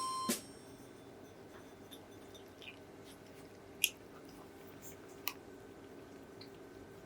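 A cat eating dry kibble. Faint chewing is broken by a few sharp crunches, the clearest about four and five seconds in.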